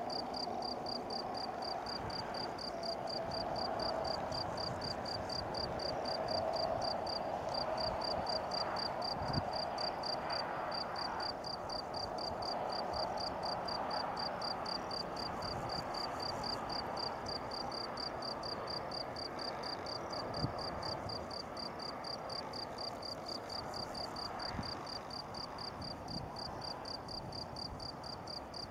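A cricket chirping in a fast, even run of high-pitched pulses, pausing briefly a couple of times, over a faint steady rushing background.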